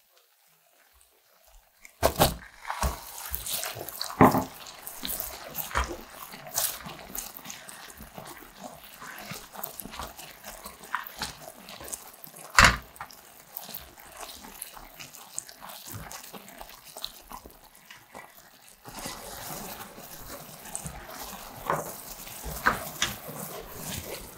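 Sugar and water syrup boiling in a saucepan: a dense bubbling crackle with scattered pops, starting about two seconds in, with a few sharper knocks and a slight rise in level near the end.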